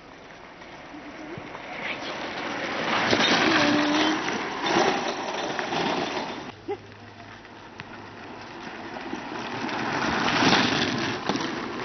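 Homemade unpowered kart rolling down a rough asphalt lane: a rumble of wheels on the road that swells as a kart comes close, twice, the second pass loudest about ten seconds in.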